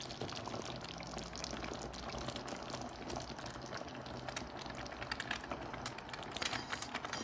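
Creamy carbonara sauce simmering in a frying pan with a soft bubbling crackle as cooked spaghetti is dropped into it, with small wet clicks and splats coming more often near the end.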